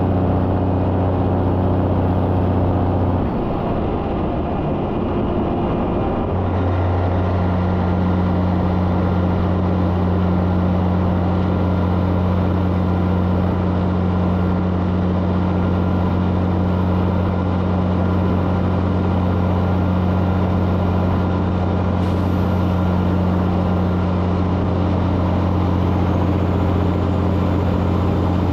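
Cabover semi truck's diesel engine pulling steadily at highway speed, with road and wind noise. The engine's steady drone drops out about three seconds in and comes back about three seconds later.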